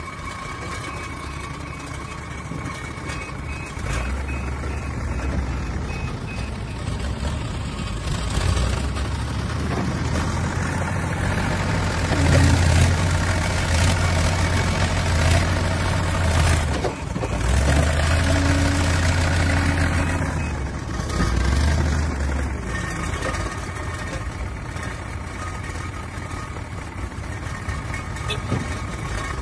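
Backhoe loader's diesel engine running, rising in revs from about four seconds in and loudest through the middle as it pushes into the pile and lifts a full front bucket of clay, then easing back.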